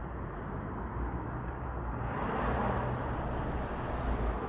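Double-stack intermodal freight cars rolling slowly past with a steady low rumble. About two seconds in, a louder rushing noise swells and eases off near the end.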